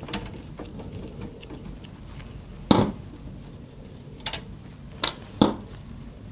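A few sharp, separate clicks and knocks of hardware being handled as the front fan is taken off a PC case, the loudest about two and a half seconds in and another near the end.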